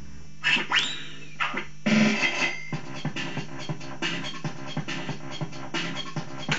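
Impulse Hurricane fruit machine playing its electronic feature sounds. A couple of quick rising synth sweeps are followed by a rapid run of repeating bleeps over a synthesized backing.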